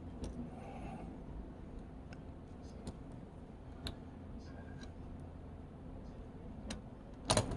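Faint steady hum with a few light ticks as a soldering iron tip works on a hard-drive circuit board, then a short cluster of louder clicks near the end.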